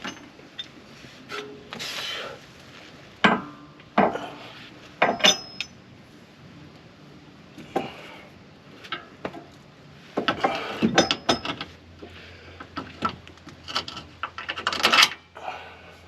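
Metal parts and hand tools clinking, clanking and rattling in irregular bursts while a Jeep Gladiator track bar is taken apart by hand.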